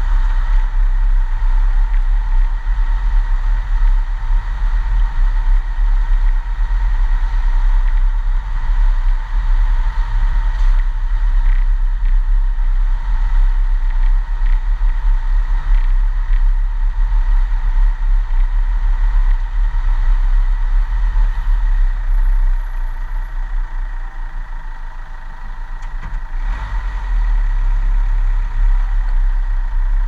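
Vehicle driving slowly over a rough, unsealed track: a steady low rumble of engine and tyres with a thin steady whine above it. The rumble eases briefly a little before the end.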